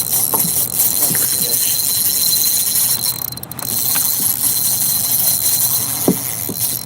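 Steady, loud rushing hiss of moving river water around a kayak, with a few short, faint squeaks.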